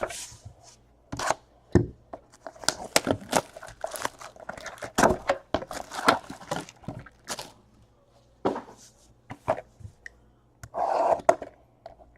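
Packaging being torn open and crinkled by hand, a run of quick sharp rips and crackles, as a sealed box of trading cards is opened. A longer stretch of crinkling comes about eleven seconds in.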